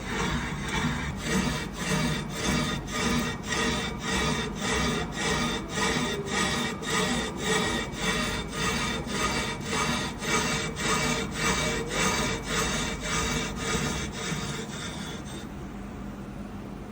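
A cutting tool counterboring a crankcase main bearing housing makes a rhythmic metal-on-metal scraping, about two to three strokes a second. The scraping stops about 15 seconds in, leaving the steady hum of the machine.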